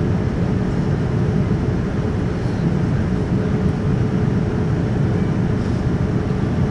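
Cabin noise inside a Boeing 787-9 airliner in flight: a steady rumble of airflow and Rolls-Royce Trent 1000 engines, with a faint steady tone running through it.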